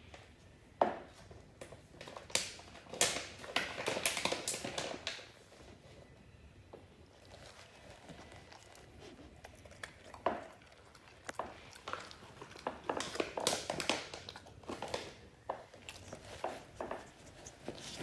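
A dog crunching and chewing dry treats: clusters of crackly crunches and clicks, one group from about two to five seconds in and another from about ten seconds on, with a quiet pause between.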